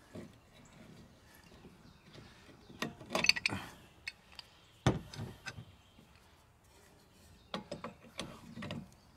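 Scattered metal clicks and clanks of a small pipe wrench being handled and fitted onto a seized Briggs & Stratton 3 hp engine: a clatter about three seconds in, one sharp knock about five seconds in, and more clicking near the end.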